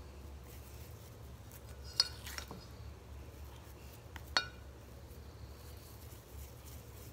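Two light clinks against a glass mixing bowl, about two seconds in and again a little after four seconds, as masa dough is scooped out and rolled into balls by hand, over a low steady hum.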